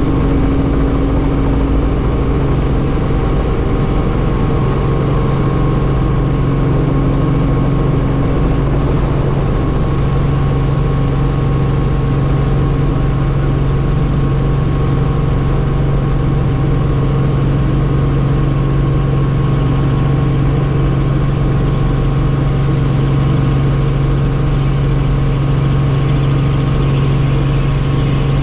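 Helicopter in flight: a loud, unbroken drone of engine and rotors, with a strong steady low hum and fainter steady higher tones over it.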